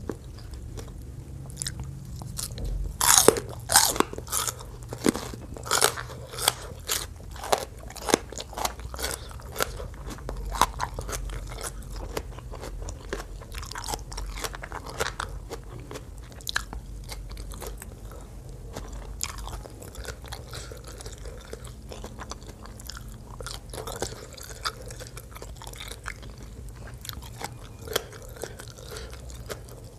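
Close-miked chewing of raw bitter gourd and green papaya salad. A run of loud, crisp crunches comes about three to eleven seconds in, followed by softer, sparser chewing.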